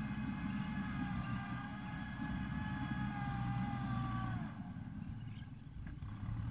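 Small farm tractor's engine running steadily in a muddy rice paddy, with a high whine over it that sags slightly in pitch and stops about four and a half seconds in, leaving the engine's low running.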